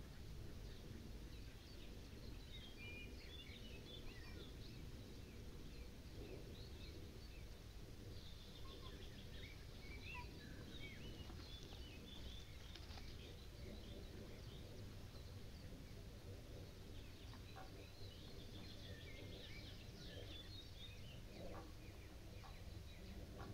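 Small birds chirping and singing in the background over a steady low outdoor rumble, all faint.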